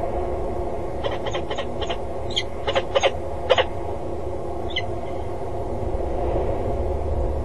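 Peregrine falcon calling: a quick run of about eight short, sharp calls between one and four seconds in, then one single call with a falling pitch about a second later. A steady low rumble runs underneath.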